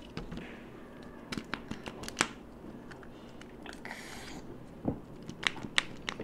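Kinder Joy eggs handled in their foil-plastic wrappers: a run of sharp clicks and taps of the plastic eggs, with a brief crinkly rustle of a wrapper about four seconds in.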